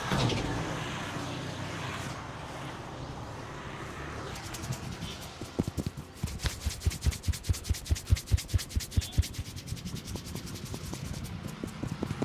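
Hands rubbing over hair and scalp during a head massage, then switching about halfway through to fast rhythmic hand slaps on the head, about four a second for several seconds.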